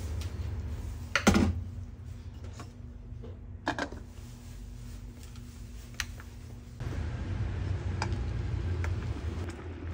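Noodles cooking in water in a small electric pot, with a low steady rumble of simmering underneath. A sharp knock comes a little over a second in and a few more knocks near four seconds, then light clicks of the pot and lid being handled.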